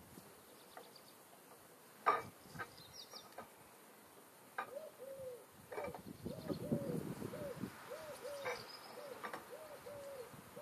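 A few sharp metal clinks from hand work with tools on a tractor engine, the loudest about two seconds in. From about five seconds in, a bird coos repeatedly in the background, about two short falling notes a second.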